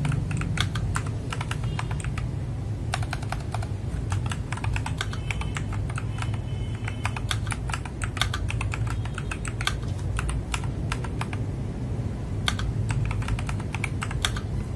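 Typing on an FL-Esports MK870 mechanical keyboard with Kailh Box Brown tactile switches: a fast, irregular run of keystroke clacks over a steady low hum.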